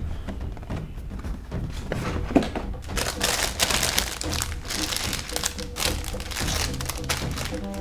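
Clear plastic bags of model-kit runners crinkling as they are handled, from about three seconds in, over background music.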